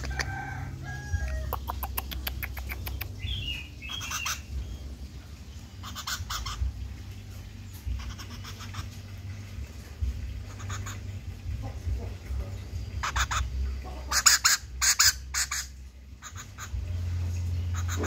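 Sharp taps and clicks in short clusters, loudest about 14 to 15 seconds in, as a hand-raised common flameback woodpecker pecks at a small plastic feeding cup, with a few brief chirps in the first seconds over a steady low hum.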